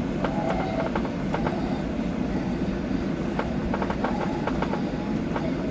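Cabin noise inside a Boeing 737-800: a steady low rumble with irregular rattling clicks from the cabin fittings.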